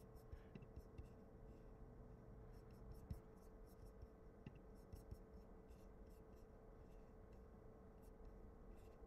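Near silence: a faint steady hum with scattered soft clicks and light rubbing from a laptop touchpad and mouse being worked.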